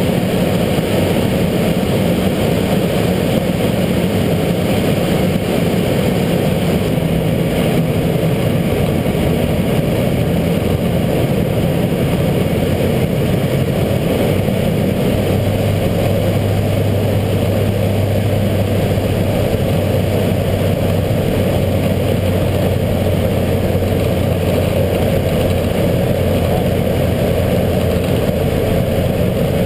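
Steady drone of a propeller airplane's engines and propellers heard inside the cockpit as it descends toward landing. The low note of the drone shifts lower about halfway through.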